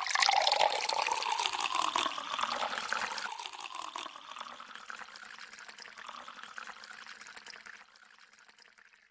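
Water poured in a thin stream into a glass, splashing as it fills. The pour is strongest in the first few seconds, settles to a quieter trickle after about four seconds, and fades further near the end.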